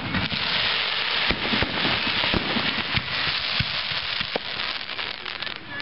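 Fireworks display: a dense, continuous crackle from exploding shells, with many sharp bangs of shell bursts going off through it. The crackle is thickest in the first few seconds and eases a little near the end.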